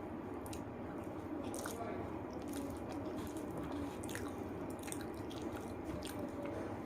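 Close-up eating sounds of rice and spicy chicken curry: chewing with wet mouth clicks and smacks coming at irregular moments, over a steady low hum.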